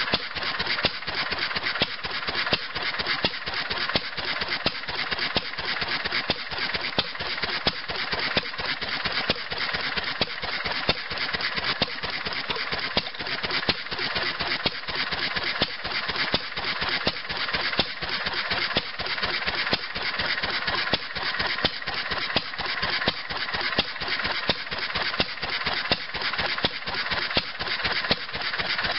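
1930 Fairbanks-Morse Model Z style C 3 hp single-cylinder flywheel engine running steadily under its throttle governor, its exhaust firing in an even, rapid rhythm without a break.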